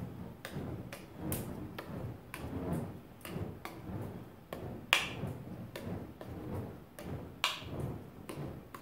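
Juggling clubs and a flaming ball being thrown and caught in a three-object pattern: a run of short knocks and slaps from the catches, about two or three a second, with two sharper ones about halfway and near the end. Under them runs a low, pulsing whoosh from the flame of the rubbing-alcohol-soaked wick inside the steel ball as it swings through the air.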